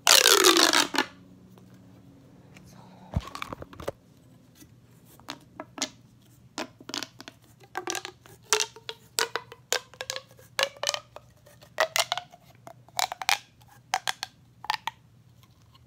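A plastic fidget toy worked by hand. It opens with a loud falling zip in the first second, then gives a long run of sharp crackling clicks and snaps, some with a slight rising pitch.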